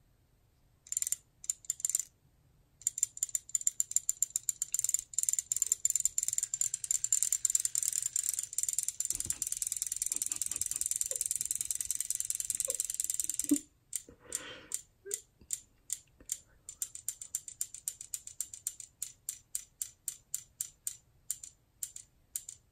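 Small battery-powered robot fish toys, still wet and so still switched on, running out of the water with a fast mechanical clicking from their tail motors. The clicking starts about a second in, stops abruptly a little past halfway, then resumes as slower, more spaced clicks.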